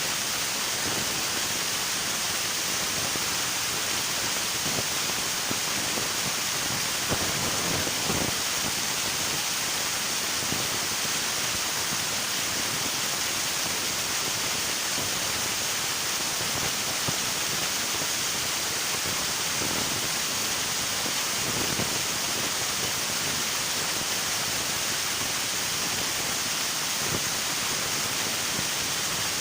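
River water rushing and splashing steadily over rocks, with a few slightly louder splashes now and then.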